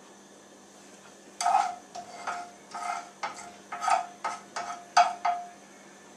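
Slotted spoon stirring mustard seeds in hot oil in a nonstick frying pan. It clinks and scrapes against the pan about ten times in quick succession from about a second and a half in, each strike with a short ring.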